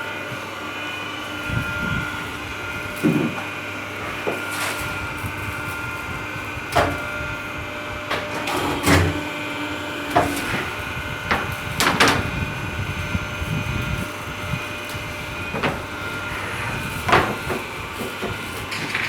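Hydraulic C-frame cutting press running: a steady machine hum carrying a few steady tones, with a dozen or so irregular knocks and clunks.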